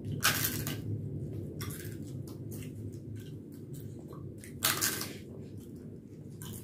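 Crisp fried papad being bitten and chewed, with loud crunches just after the start and again about four and a half seconds in, and softer crunching between.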